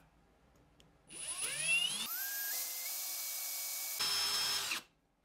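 Milwaukee cordless drill motor spinning up with a rising whine about a second in, then running steadily with a scraping hiss from a utility knife blade scoring the spinning brass tube so that it will snap off. The drill stops shortly before the end.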